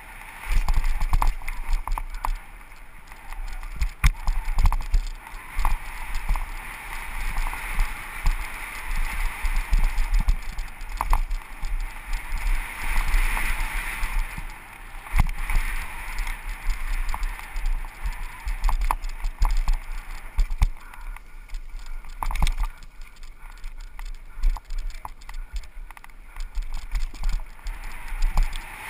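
Downhill mountain bike ridden fast over a dirt trail, heard from a helmet-mounted camera: a steady rush of wind and tyre noise with frequent clunks and rattles as the bike hits bumps and roots.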